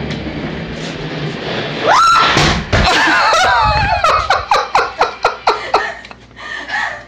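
Small caster wheels of a filing-cabinet roller rumbling over a wood floor, then about two seconds in a woman shrieking as she falls off it with a thud, followed by rapid laughter at about four bursts a second.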